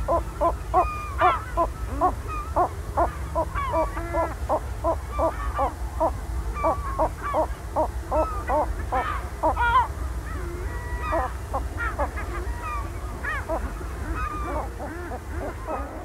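Lesser black-backed gull giving its 'choking' call at low intensity: a rhythmic run of short, hoarse notes at about three a second. The notes grow more irregular, with some higher notes, from about halfway. This is the gull's choking display, given in territorial and pair display at the nest site.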